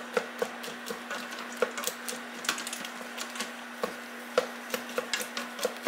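Cooked pinto beans being mashed in a pot: a masher or spoon knocks against the pot in quick, uneven strokes, about two to three a second, over a steady low hum.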